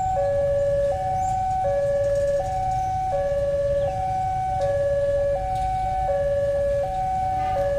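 Railway level-crossing warning siren sounding a steady two-tone hi-lo alternation, each tone held about three-quarters of a second: the crossing's warning that a train is coming. A steady low rumble runs beneath it.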